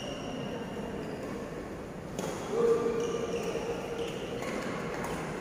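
Badminton play in a sports hall: a few sharp racket-on-shuttlecock hits and knocks about two and three seconds in, over the steady background noise of the hall.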